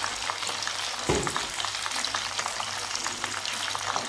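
Rice-paper spring rolls deep-frying in a pan of hot oil, the oil crackling and popping steadily. A single dull thump about a second in.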